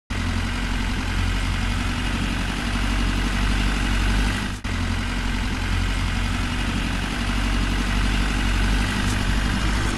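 Tractor engine running steadily, a dubbed engine sound over a toy tractor towing a trailer. It starts abruptly, with a brief dropout about four and a half seconds in.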